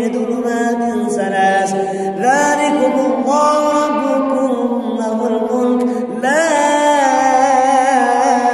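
A man's voice reciting the Qur'an in a melodic, sung style, with long held notes and wavering ornaments. The line steps up in pitch about two seconds in and again about six seconds in.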